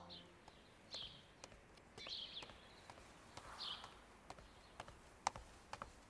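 Faint footsteps on stone paving, a step about every half second, with a few short bird chirps.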